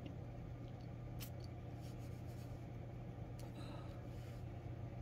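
Faint handling of a perfume bottle: a few light clicks about a second in, then a soft hiss from the atomizer spraying perfume about three and a half seconds in, over a steady low hum.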